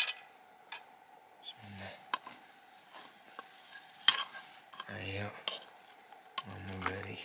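Wooden spoon stirring and scraping thick cooked porridge in an aluminium pot, with a few sharp knocks of the wood against the metal and three short, low scraping spells.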